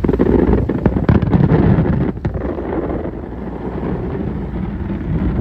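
Fireworks going off in a dense barrage: a rapid run of booms and crackles for about the first two seconds, then a lower rumble as it dies away, with wind buffeting the microphone.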